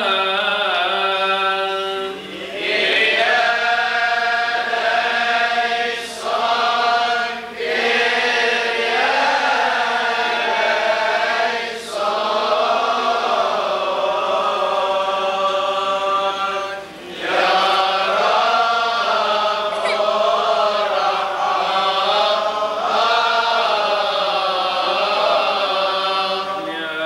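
Unaccompanied Coptic liturgical chant: long, slowly wavering melismatic phrases sung by voices, broken by brief pauses for breath.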